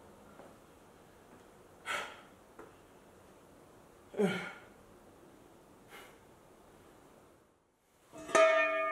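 A man sighs and breathes out hard a few times while working. Near the end a metal part clanks and rings.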